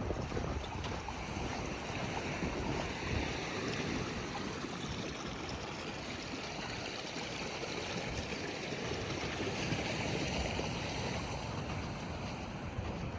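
Steady rush of moving water at the rocky shoreline, with wind buffeting the microphone for the first few seconds.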